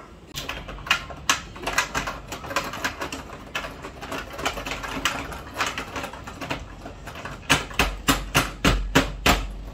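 Toy electronic keyboard being banged on by several hands at once: a stream of irregular clacking key strikes that comes faster and heavier near the end.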